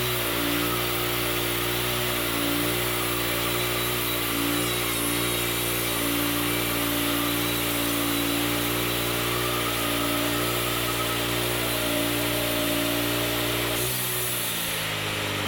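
WoodMizer LT40 Wide bandsaw sawmill running steadily under load, its band blade cutting through a very hard, dense pecan log. About 14 seconds in the low engine tone drops away and the sound changes, as the cut ends.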